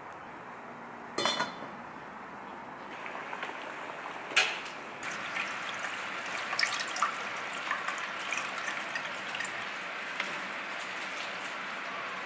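Water boiling in a steel pot with potato fries in it. There is a sharp metallic clink about a second in and a knock about four seconds in. Then cold water is poured steadily over the blanched fries in a metal mesh strainer, a water noise with small crackles.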